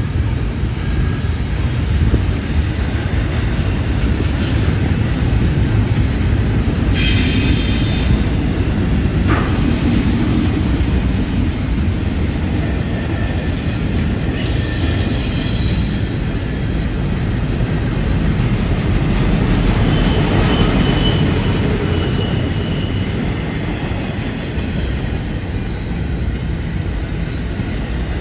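Double-stack intermodal freight cars rolling past on a curve: a loud, steady rumble of steel wheels on rail. Several brief high-pitched wheel squeals ring out over it, the strongest about seven and fifteen seconds in.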